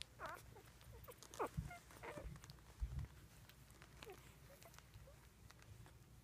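Twelve-day-old puppies giving faint, short squeaks and whimpers, several cries falling in pitch, the clearest about a second and a half in. A couple of soft low thumps come between the cries.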